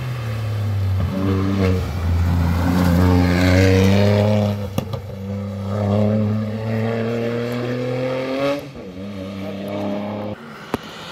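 Rally car engine accelerating hard on a timed stage, its pitch climbing through two long pulls with a sharp crack at the shift between them. The engine note drops back about eight and a half seconds in as the driver lifts off.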